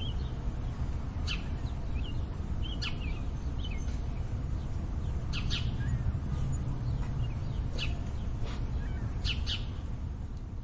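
Small songbirds giving short, sharp chirps every second or two, sometimes in quick pairs, over a steady low urban rumble.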